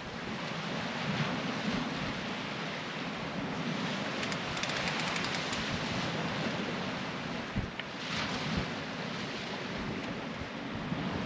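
Sea waves washing onto a shingle beach, with wind buffeting the microphone. A brief run of rapid faint clicks comes about four seconds in.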